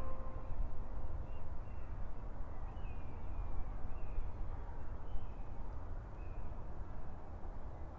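Wind rumbling on the microphone, with birds giving short, high calls that dip in pitch, roughly one a second. A held music chord fades out in the first half second.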